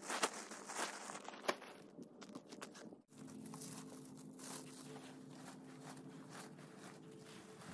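Quiet rustling and crinkling of cut ivy leaves and a paper garden-waste bag as clippings are gathered by hand, with scattered small clicks. The sound drops out briefly about three seconds in, and after that a faint steady hum lies under the rustling.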